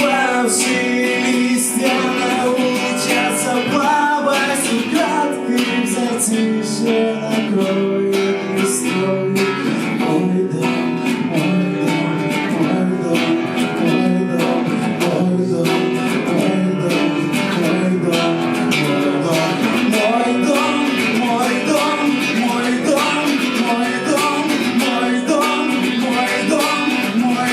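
Guitar being strummed and picked in an instrumental stretch of a live rock song, steady and busy throughout.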